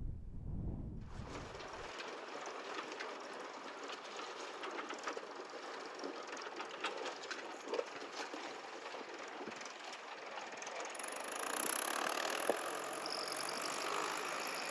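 Tractor engine running as it comes along the causeway, with many small clicks throughout; it gets louder about two-thirds of the way in.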